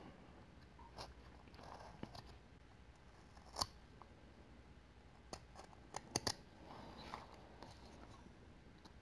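Whittling knife cutting basswood by hand: quiet slicing and scraping strokes with scattered sharp clicks, a cluster of them about six seconds in.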